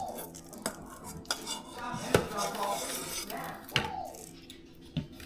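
A utensil clinking and tapping against dishes, with several sharp taps spaced about a second apart, as crushed Oreo cookies are sprinkled over pudding cups.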